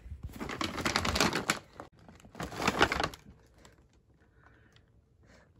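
Brown paper takeout bag rustling and crinkling as it is handled and set down on a bathroom scale, in two bursts: one about two seconds long, then a shorter one.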